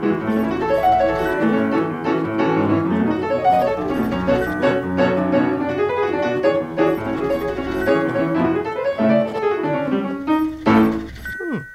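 Background piano music, a flowing run of many notes that fades out near the end.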